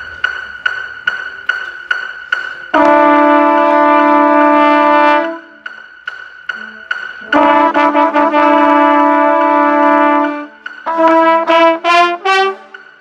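Mellophones playing together, starting after a few seconds of evenly spaced clicking at about two and a half a second. They hold two long notes of a few seconds each, then play a quick run of short notes climbing upward near the end.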